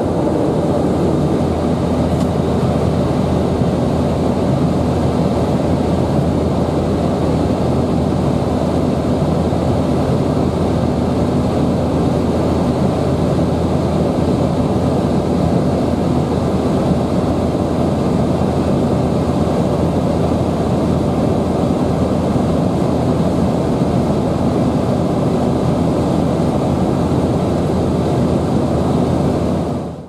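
Steady cabin noise of a jet airliner climbing after takeoff: engine and airflow noise, even and unbroken, heard from inside the passenger cabin.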